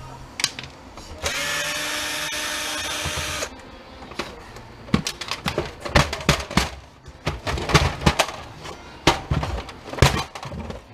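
Power drill-driver running for about two seconds, backing out a screw from a printer's housing, followed by a string of sharp clicks and knocks of plastic printer parts being handled.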